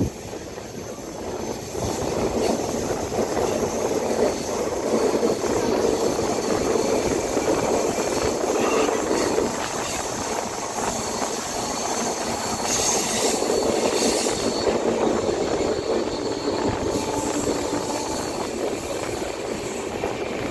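LHB passenger coaches running at speed: a steady rumble of wheels on the track, with creaking from the coaches as the train curves.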